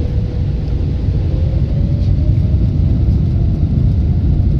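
Boeing 777-300ER on its takeoff roll, heard from inside the cabin: its GE90 engines at takeoff thrust over a heavy low rumble, with a faint tone that slowly rises in pitch as the aircraft gathers speed.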